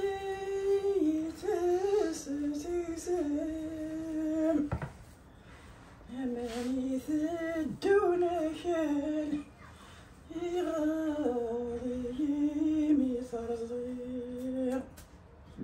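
A woman humming a melody without words in three long phrases, with held, slightly wavering notes and short pauses between them.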